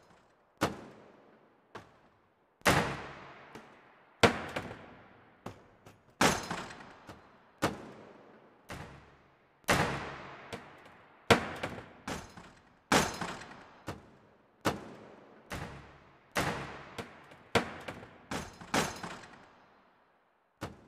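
Electronic sound-art performance played over loudspeakers: sharp, loud bangs like shots or slams, about one every one to two seconds, each dying away in a long reverberant tail. The bangs stop briefly near the end.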